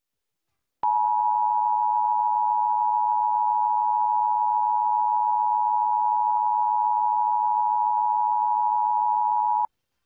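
Emergency Alert System attention signal: two steady tones sounding together as one harsh, unchanging buzz, starting about a second in and cutting off sharply just before the end, about nine seconds long.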